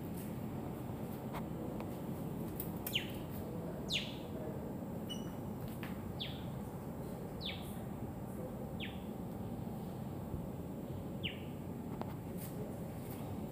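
Osprey calling: a series of about six short, sharp whistles, each falling steeply in pitch, spaced roughly one to two seconds apart. A steady low hum runs underneath.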